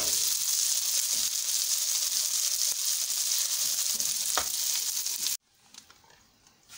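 Spiced shredded chicken sizzling as it fries in oil in a nonstick wok, stirred with a spatula that scrapes and knocks on the pan now and then. The sizzling cuts off suddenly about five seconds in.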